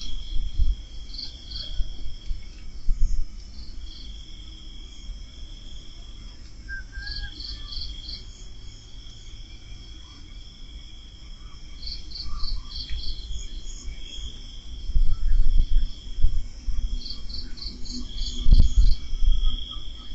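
Night-time crickets chirping in repeated groups of short pulses every few seconds over a steady high insect trill. Low rumbling bumps come twice in the last third.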